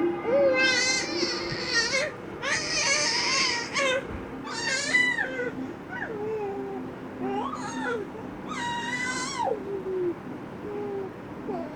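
Crying: a voice giving about five long, high, quavering wails, with short gaps between them.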